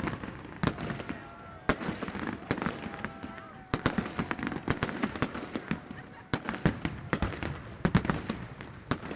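Fireworks bursting in rapid, irregular bangs and crackles, several a second, with a few louder bangs among them.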